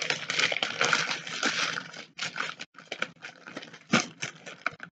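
Clear plastic bag crinkling as hands rummage through the small plastic packets of diamond-painting drills inside it. Steady rustling for about the first two seconds, then separate crackles, the loudest about four seconds in.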